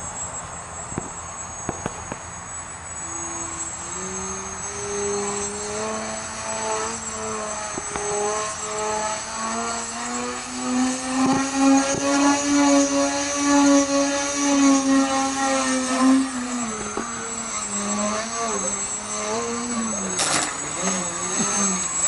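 Electric motor and propeller of a 24-inch foam delta-wing RC plane in flight: a whine that rises in pitch as the throttle opens, holds high and loudest for several seconds, then drops and wavers as the plane turns. A short burst of noise comes near the end.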